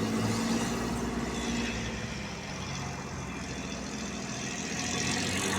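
Steady low engine hum, like an idling motor, with a droning tone that fades a little midway and comes back near the end.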